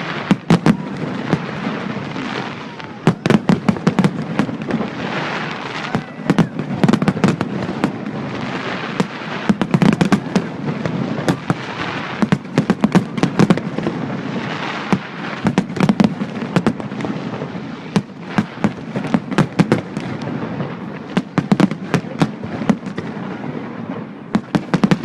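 Fireworks display: rapid volleys of sharp bangs and crackles, coming in clusters every second or two over a continuous low rumble.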